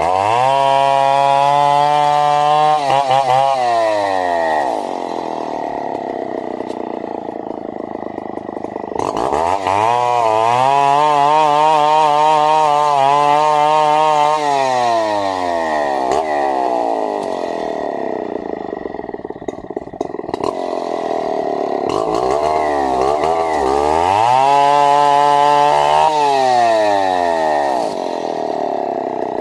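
Two-stroke chainsaw revved up to full throttle three times, a few seconds each, the pitch wavering while held, dropping back to idle in between.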